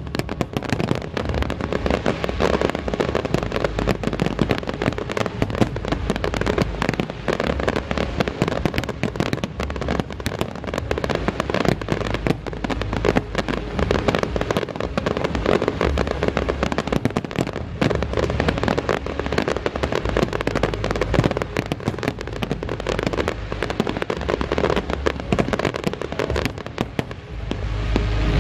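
Fireworks display: aerial shells bursting in a dense, continuous crackle of rapid pops, with low booms underneath.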